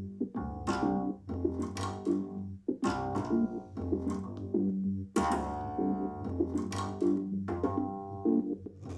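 Instrumental music with a steady bass line and bright keyboard-like notes, played back through a small Anker portable Bluetooth speaker for a sound-quality test.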